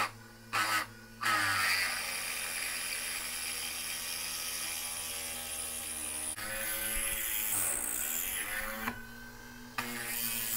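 Unimat SL-1000's factory 90-watt universal motor driving the spindle in milling mode while a 5/16-inch drill bit cuts into a metal pulley's bore: the steady motor hum with a few short bites at the start, then several seconds of continuous grinding cut whose sound shifts about six seconds in, and another bite near the end.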